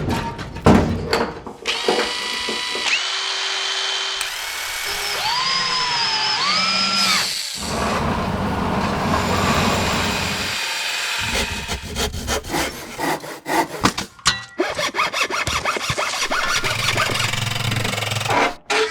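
A run of construction sound effects cut one after another: power tools whining and changing pitch as their motors speed up and slow down, a stretch of steady grinding or sawing noise, then a long series of quick knocks and clatters.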